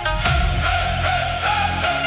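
Electronic dance music: a heavy bass line and a thick synth layer come in at once over the fading plucked notes of the intro, with no singing.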